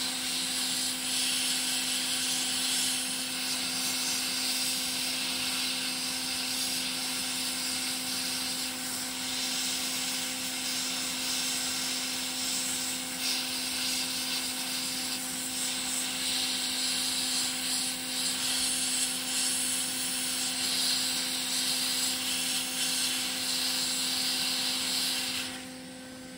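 Hot air rework station blowing a steady hiss of hot air, melting the solder to lift a chip off a circuit board, over a steady low hum. The air stops about a second before the end.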